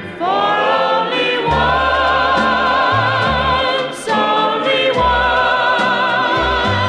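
Early-1960s pop record playing: long held notes with vibrato over a bass line that changes note about every half second.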